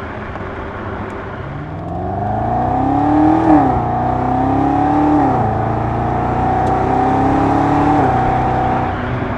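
BMW F90 M5's twin-turbo V8 through a Scorpion half-system exhaust, accelerating up through the gears. The pitch climbs and drops three times at the upshifts, then holds steady near the end.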